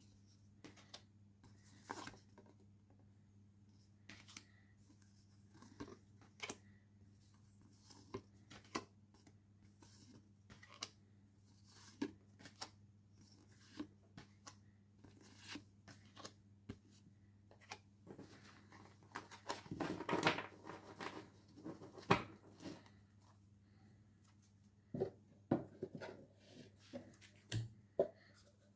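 Postcards being handled: light taps and flicks of card as they are leafed through and laid down on a wooden table, with a longer burst of shuffling and knocking about two-thirds of the way through as the stack is gathered. A faint steady low hum underneath.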